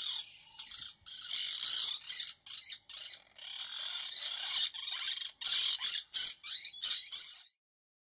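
Monk parakeets chattering and squawking: a dense, continuous run of short, high-pitched calls in quick succession, stopping about seven and a half seconds in.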